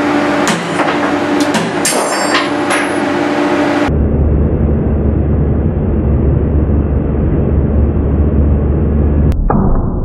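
Pull test on a worn, apparently hairline-cracked steel screw-gate carabiner: the loaded rig runs with a steady hum, with creaks and clicks in the first few seconds. About nine seconds in comes a single sharp crack as the carabiner snaps under the load, followed by a brief ringing.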